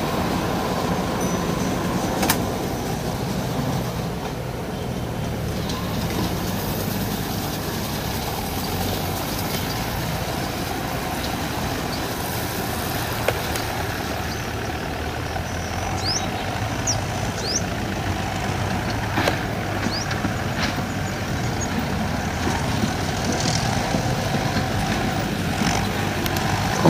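Tractor engine running steadily under load, towing a round baler that rolls up rice straw. A few sharp clicks come through, and a few short high chirps come about two-thirds of the way through.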